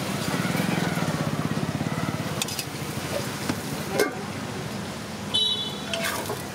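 A steady low engine hum from street traffic. A metal lid clanks down onto the appam pan about four seconds in, and a short high beep follows about a second later.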